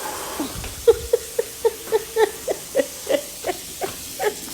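A person whimpering in pain from the burning heat of a super-spicy chip: a rapid run of short, high cries, about three a second, each dipping slightly in pitch.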